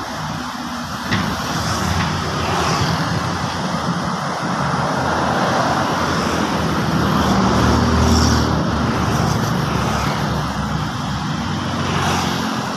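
Large Komatsu bulldozer's diesel engine running, a steady low rumble that swells loudest about eight seconds in, with a few brief high squeaks.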